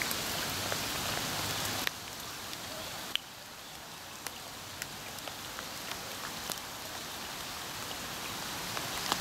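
Steady rain hissing down, dotted with scattered sharp drop ticks; the hiss turns quieter about two seconds in and again a second later.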